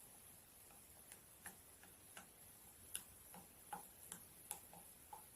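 Faint, irregular light clicks, about a dozen, from a mixing spoon tapping against a glass jar as the fizzing mixture is stirred.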